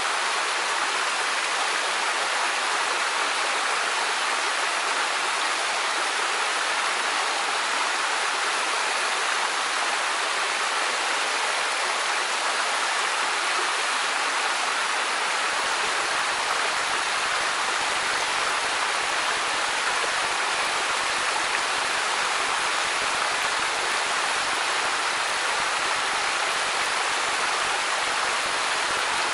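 Steady rushing of a waterfall, water sheeting down a steep rock slab. A faint low rumble joins about halfway through.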